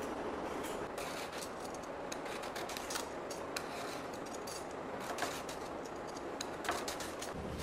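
Kitchen food-preparation sounds: a scatter of small, irregular clicks and taps of utensils over a steady background hiss.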